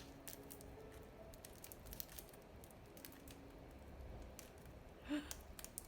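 Faint crinkling and rustling of plastic and paper packaging being handled, with scattered light clicks and one louder rustle about five seconds in.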